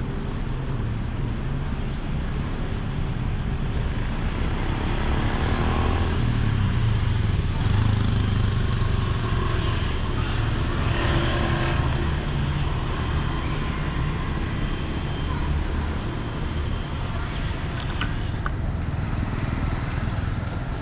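Street traffic: cars and motorbikes passing on a city road, a steady engine and tyre rumble that grows louder for several seconds in the middle as vehicles go by.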